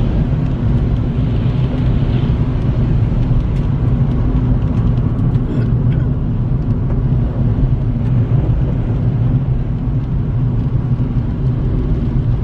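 Inside a car driving on a rain-soaked road: a steady low rumble of engine and tyre noise, unbroken throughout.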